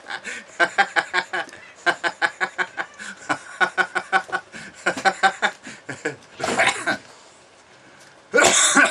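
A person laughing in quick, rhythmic chuckles, several a second, then breaking into two louder, harsher outbursts near the end.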